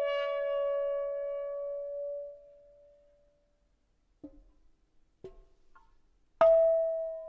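Sparse background music of struck, ringing bell-like notes: one note dies away over the first couple of seconds, a few soft notes follow, and a louder note strikes near the end and rings out.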